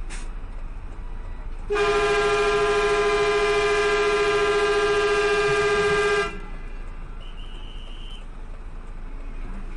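A vehicle horn sounded in one long, steady blast of about four and a half seconds, starting a couple of seconds in, over a steady engine drone.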